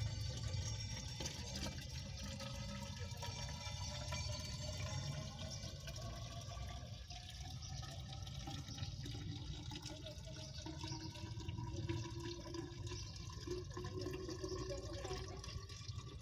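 Gasoline trickling in a thin stream from a plastic jug into a tall plastic graduated cylinder. It makes a steady pouring and filling sound that slowly rises in pitch as the cylinder fills toward the one-liter mark.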